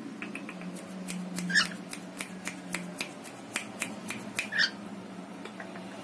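Lutino cockatiel hissing in a run of short sharp puffs, with two louder hisses about a second and a half in and near the end: defensive hissing at a hand reaching toward its nest tube.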